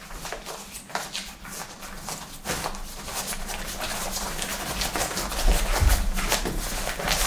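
Rustling and crinkling of a deflated Exped AirMat's fabric as it is rolled up tightly, pressing the last air out through the open valve. It is a dense run of small crackles that gets louder partway through.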